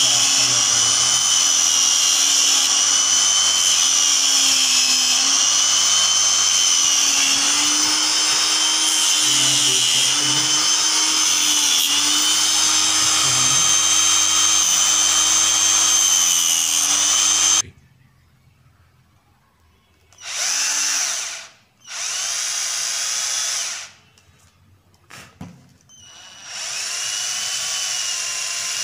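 Angle grinder running with a cutting disc, its whine wavering as a small part is pressed against the disc. It stops abruptly about two-thirds of the way through, and a cordless drill then runs in three short bursts, drilling into a small ball.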